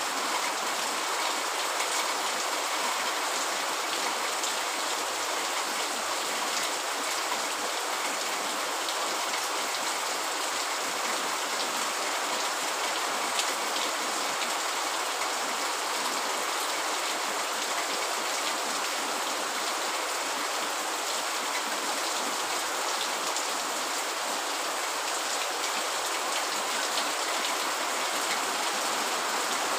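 Steady rain falling, an even hiss of dense drops that holds without change.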